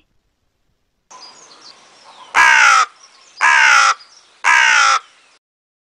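A crow cawing three times, about a second apart, over a faint background hiss. Each caw is short and harsh and falls in pitch.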